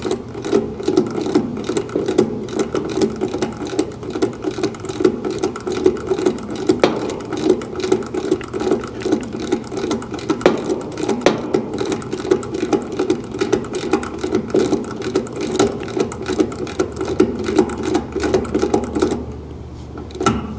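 Ratchet wrench clicking rapidly and continuously as it turns an AC condenser's service valve stem open, releasing the refrigerant charge into the line set; the ratcheting stops suddenly near the end.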